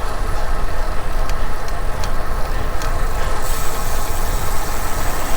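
Wind rushing over a bike-mounted action camera's microphone while cycling, with a steady low rumble of tyre and road noise. A few faint clicks come early on, and a higher hiss grows stronger just past halfway.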